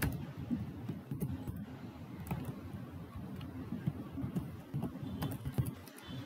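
Computer keyboard keys clicking in a few scattered short runs as code is typed, over a faint low background hum.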